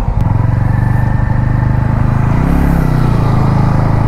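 Motorcycle engine running unevenly, revving up briefly about two and a half seconds in and dropping back. The bike keeps stalling, and the rider suspects the carburettor needs cleaning.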